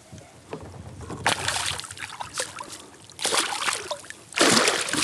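Hooked northern pike thrashing at the surface beside a kayak as it is brought to the net, splashing in sudden bursts: one about a second in, another around three seconds in, and a louder, longer spell of splashing near the end.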